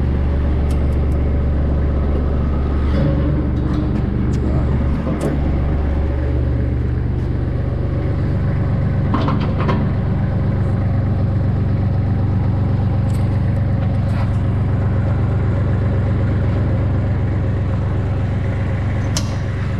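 Kubota L3010 compact diesel tractor engine running steadily, its note rising a little about six seconds in. A few short knocks sound over it.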